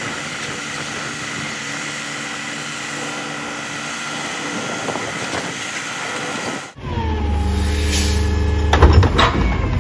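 Diesel truck engines running. For the first part, a grapple truck's engine hums steadily while its knuckle-boom crane loads yard debris. Then a CNG-fuelled side-loading garbage truck runs with a whine that dips and rises in pitch, and a few sharp knocks near the end as a wheeled garbage cart is handled beside it.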